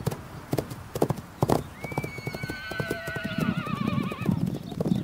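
Przewalski's horses' hooves clopping at an uneven pace, with one horse whinnying about two seconds in: a call that rises, then quavers and falls over about two seconds.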